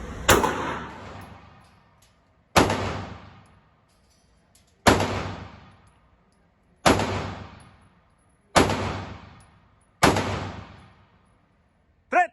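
Six single gunshots, spaced about one and a half to two seconds apart, each followed by a long echoing tail. A brief pitched sound comes near the end.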